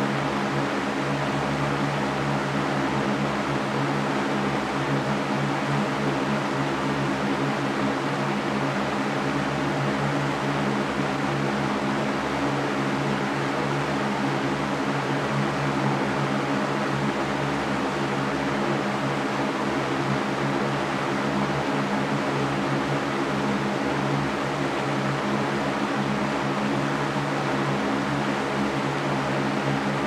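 Mastercraft metal floor fan running steadily at constant speed: an even rush of moving air over a steady low motor hum.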